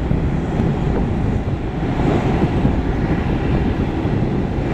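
Jet engines of a McDonnell Douglas MD-11F trijet freighter climbing away after takeoff, heard as a steady low rumble.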